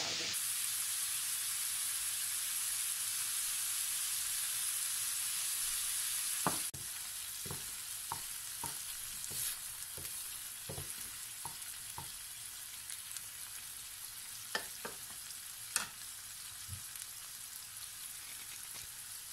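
Minced meat sizzling as it fries in a nonstick pan, a steady hiss. About a third of the way in the sizzle drops a little quieter, and from then on a wooden spatula knocks and scrapes against the pan now and then as the browning meat is stirred.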